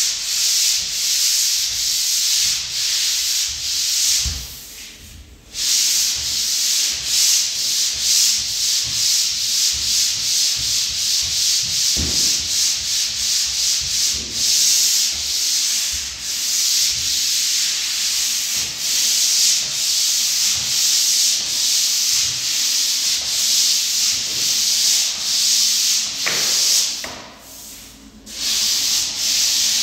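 Drywall pole sander's abrasive head scraping back and forth across the joint compound of a drywall ceiling in steady, rhythmic strokes. It pauses briefly about five seconds in and again near the end.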